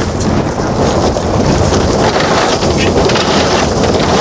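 Steady road noise and wind noise inside a car driving along a dirt forest road, with wind rushing over the microphone.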